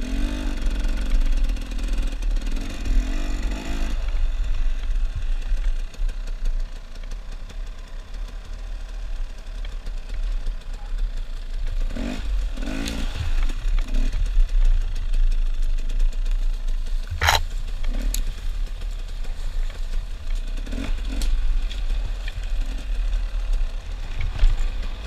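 Dirt bike engine running along an enduro trail, rising and falling with the throttle, picked up by a camera mounted on the bike with a heavy low rumble. A sharp knock stands out about two-thirds of the way through, with a few lighter knocks around it.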